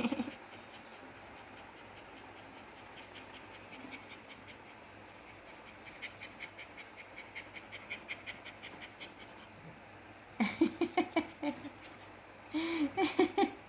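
A dog panting quickly and softly, about five breaths a second. Near the end come two short, louder bursts of a pitched voice.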